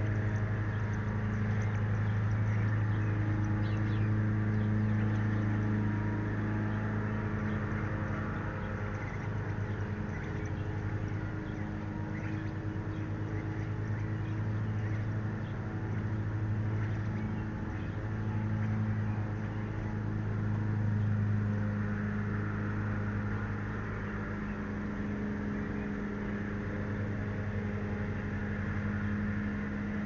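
Steady low mechanical or electrical hum with a deep base tone and a higher overtone, swelling and easing slightly in loudness.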